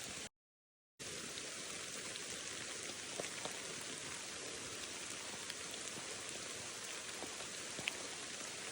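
Steady rain falling, with a few separate drops ticking close by. The sound cuts out completely for under a second near the start.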